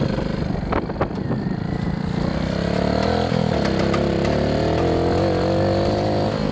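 Honda ATC110 three-wheeler's small single-cylinder four-stroke engine running while the machine is ridden across rough ground, with a few knocks in the first couple of seconds. It revs up about two and a half seconds in and then holds a steady, higher note.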